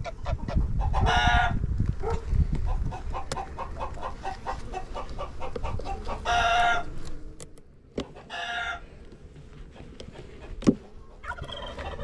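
Chickens calling: four loud, drawn-out calls of about half a second each, with a run of short, quick clucks in between. A low rumble runs underneath, and there is one sharp knock near the end.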